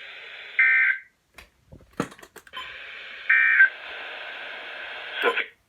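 Two short bursts of NOAA Weather Radio SAME data tones, the end-of-message code that closes the alert, heard over the receiver's steady hiss. Each burst lasts about a third of a second: the first comes just under a second in, the second about three seconds later. Between them the hiss cuts out briefly, with a few clicks.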